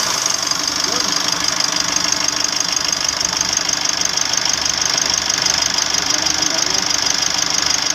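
Mitsubishi L300's 4D56 common-rail turbodiesel idling steadily with an even diesel clatter, freshly restarted after a fuel filter change and hand-pump priming of the fuel line.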